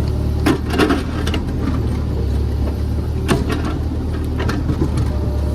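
JCB JS30 Plus mini excavator's diesel engine running steadily under digging load, with scattered sharp knocks and scrapes as the bucket works against tightly packed laterite stone.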